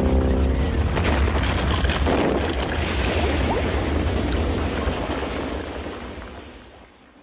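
Cartoon sound effect of a rock stage collapsing: a crashing rumble of tumbling rock and debris with a heavy low boom, dying away over the last couple of seconds.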